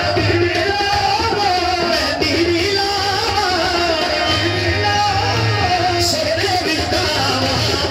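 Qawwali music: a lead voice singing a wavering, continuous melody over harmonium, with a low drum beat underneath that grows stronger about halfway through.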